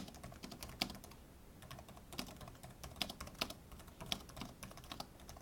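Typing on a computer keyboard: an irregular run of quick, faint key clicks.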